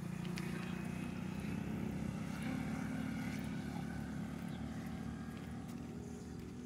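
A distant engine droning steadily, a little louder in the middle and fading toward the end.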